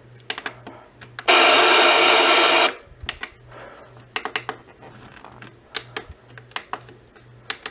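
Buttons clicking on an Emerson Research CKW2000 weather alert clock radio as it is stepped through its weather channels. About a second in, the radio's speaker gives a loud, steady burst about a second and a half long that cuts off suddenly.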